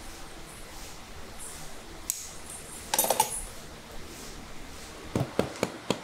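A farrier's hammer striking horseshoe nails at the hoof: four quick sharp taps near the end. About halfway through there is a short burst of small metallic clinking.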